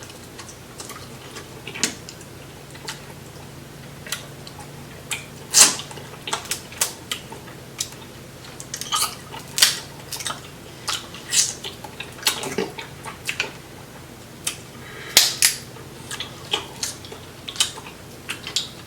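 Close-up eating of seafood boil: shells of snow crab and tiger prawns cracking as they are broken open and peeled, with chewing, in scattered sharp clicks and crunches.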